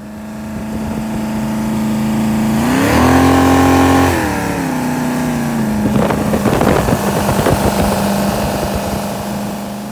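540 cubic inch big block Chevy V8 in a jet boat running at speed, revving up about three seconds in and easing back a second or two later. From about six seconds in a rough rushing noise rides over the steady engine note.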